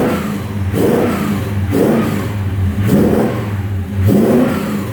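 Classic car engine, freshly started, revved in short blips about once a second over a steady low engine drone.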